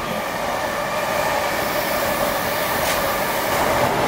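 Greater Anglia passenger train passing through the station at speed without stopping: steady wheel-on-rail noise from the coaches with a few steady tones in it.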